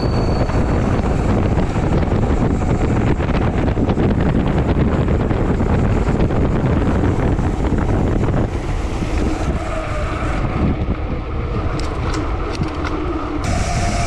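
Heavy wind buffeting on the action camera's microphone from riding a bicycle at speed, a dense steady rumble that eases slightly about eight seconds in.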